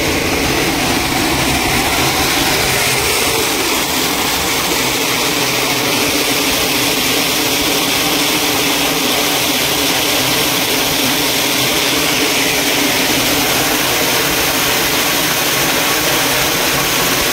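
Machinery running: a loud, even mechanical whir and hiss with a faint hum, unchanged throughout.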